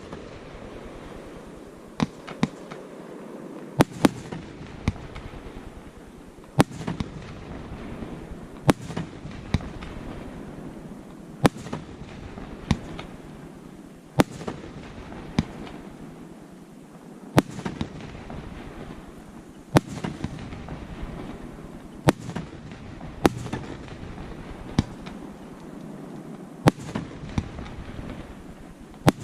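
Fireworks display: sharp shell bursts going off every second or two, some in quick pairs, over a continuous rumble.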